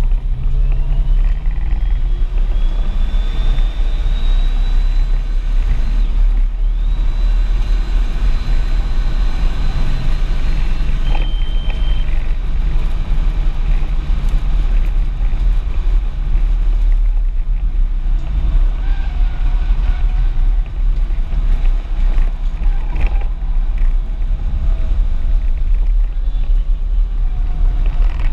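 Audi S4 engine and road noise heard from inside the cabin at speed on a race track: a steady heavy rumble with a thin whine rising slowly in pitch over the first ten seconds as the car pulls along the straight, and a brief high tone about eleven seconds in.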